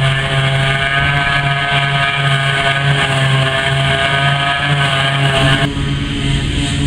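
John Deere self-propelled forage harvester running under load as it chops grass, a steady engine hum under a high whine. The high whine drops away about six seconds in.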